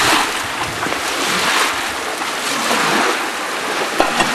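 Water rushing and splashing along a concrete coffee washing channel, surging as a wooden paddle stirs the wet coffee beans through it. A couple of sharp knocks near the end.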